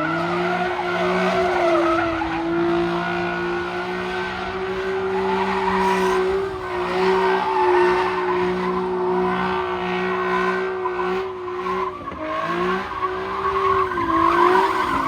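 A car engine held at high revs while the tyres spin and squeal on the pavement. The revs dip briefly about twelve seconds in, pick back up, then fall away at the end.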